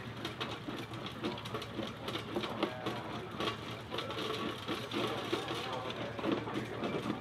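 A fast, steady mechanical clatter from running machinery, with people talking.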